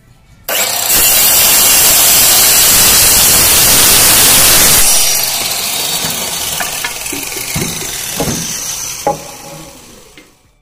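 Handheld electric cutter machine with a wood-cutting blade starts abruptly about half a second in and saws through a wooden door-frame piece, loud and steady for about four seconds. It then runs on more quietly with a few light knocks, gives a sharper knock about nine seconds in, and dies away near the end.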